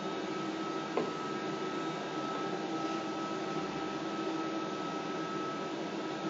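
Steady machine hum with a constant high whine from a powered-up Fanuc M-6iB industrial robot and its controller, with a single sharp click about a second in.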